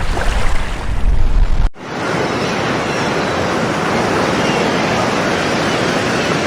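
Sea surf washing and breaking. For the first second and a half, wind buffets the microphone with a heavy low rumble. About two seconds in, it cuts abruptly to a steadier hiss of surf.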